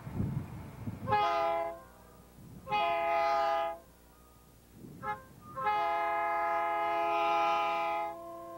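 Air horn of a Santa Fe SD40-2 diesel locomotive sounding three blasts as the train approaches: a short one, a slightly longer one, then a long one of about two and a half seconds. Each blast is a chord of several steady notes.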